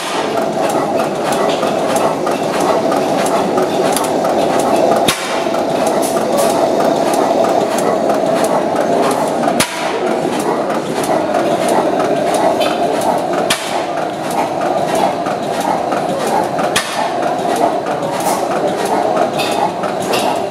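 Fielding & Platt horizontal stationary oil engine running: a steady mechanical clatter with rapid ticking, broken by a sharper knock every few seconds.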